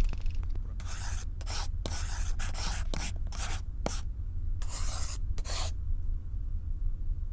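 Pen-on-paper writing sound effect: about ten quick scratching strokes in a row, stopping about two-thirds of the way through, over a steady low hum.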